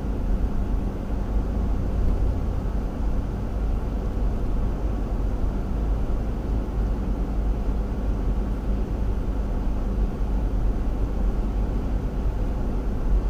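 Steady road and engine noise heard from inside a moving vehicle cruising at a constant speed, mostly a low rumble.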